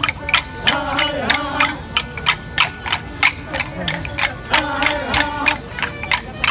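Wooden dance sticks clacking together in a steady rhythm, about three sharp clacks a second, as dancers strike their paired sticks in a tipari stick dance. A wavering melody of accompanying music plays over the clacks.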